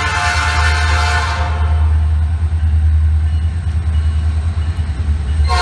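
Diesel freight locomotive's multi-tone air horn sounding a chord that breaks off about a second and a half in, leaving the steady low rumble of the approaching train, then sounds again sharply near the end.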